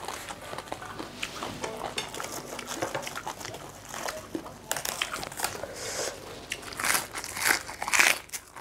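Close-up eating sounds of spicy papaya salad with blue swimming crab: chewing, crunching and small wet clicks of crab shell and salad, with a few louder sucking slurps at the crab in the second half.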